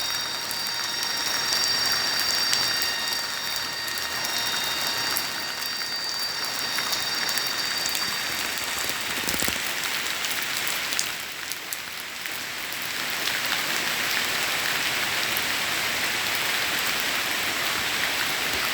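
Steady rain falling on a rubber plantation, an even hiss of drops. It eases briefly just past the middle, then comes down harder. A few faint high steady tones fade out about a third of the way in.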